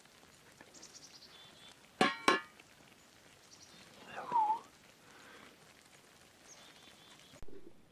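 A dog gives two quick, sharp yips about two seconds in, then a short whine a couple of seconds later.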